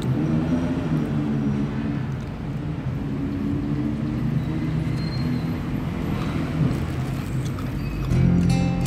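Steady low rumble of road traffic, with music coming in near the end.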